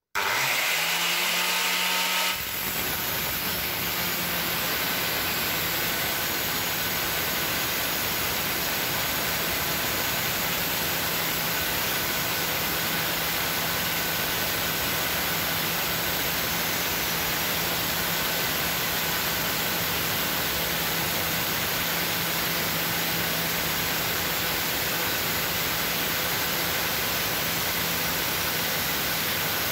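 Makita plunge saw fitted with a diamond blade, spinning up with a rising whine and then running steadily as it cuts dry through porcelain tile: a dense, even grinding noise over a constant motor hum.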